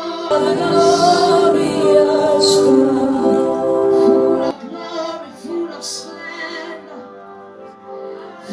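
Worship music with sustained, wordless singing over instruments, fuller and louder in the first half and thinning out about halfway through.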